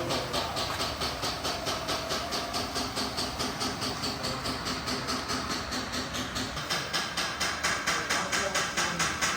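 Rhythmic mechanical chuffing with a hiss from an RC model construction machine, about four to five pulses a second. It turns louder and sharper about two thirds of the way through.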